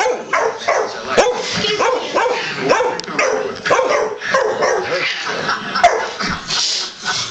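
Dog barking and yipping over and over at an uneven pace while fighting with a cat.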